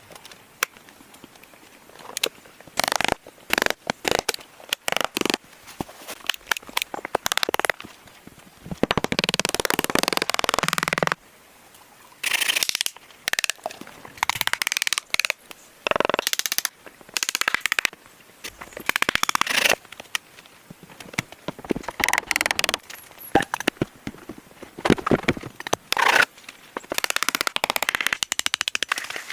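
Irregular sharp cracks and snaps with longer stretches of crunching and rustling, as of dry branches and brush being broken and handled.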